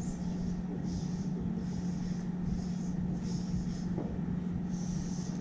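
Marker pen writing on flip-chart paper: about six short scratchy strokes, roughly one a second, over a steady low hum in the room.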